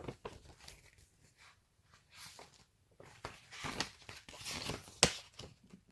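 Plastic snack packaging being handled, crinkling and rustling in several short bursts, with one sharp click about five seconds in.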